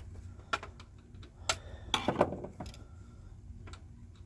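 Small plastic and metal parts of a VHS camcorder being handled and pried apart: a few sharp clicks and taps, the loudest about one and a half and two seconds in, over a faint low hum.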